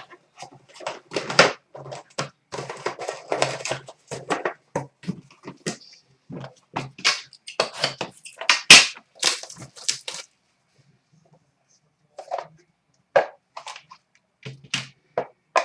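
Packaging of a sealed trading card box being torn open and handled, with crinkling, tearing and sharp crackles. These come in quick clusters for about ten seconds, then a short lull and a few scattered clicks near the end.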